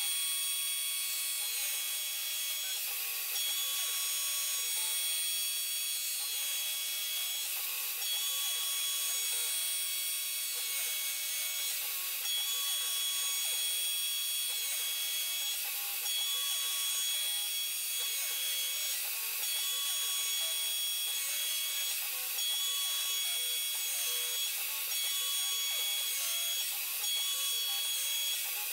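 CNC router milling aluminium with an end mill: the spindle runs with a steady high whine over a hiss of cutting, while the stepper motors' tones rise and fall as the axes sweep the cutter back and forth.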